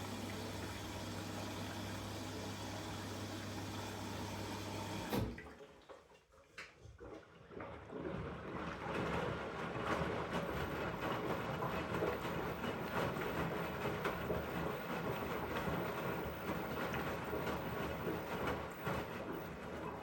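Elin washing machine during its rinse: a steady electric hum, typical of the drain pump, cuts off with a click about five seconds in. A few seconds later water starts rushing and splashing in the drum and keeps going.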